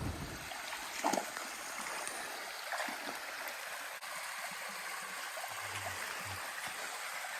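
Steady rushing hiss of running water, with a few faint knocks.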